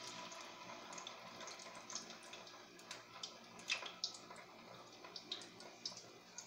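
Potato-and-carrot balls deep-frying in hot oil in a wok: a steady sizzle with scattered pops and crackles, the sharpest a few seconds in.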